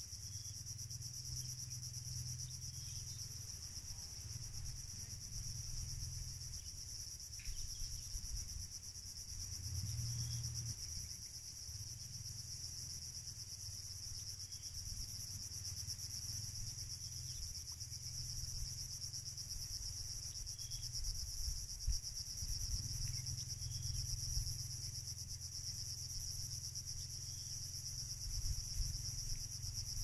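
Steady, high-pitched chorus of insects, unbroken throughout, over a low rumble, with a few faint short chirps.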